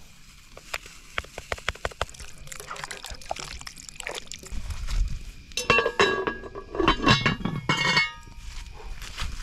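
A series of light clicks and knocks, then a louder run of ringing clinks from hard objects striking each other, from a little past halfway.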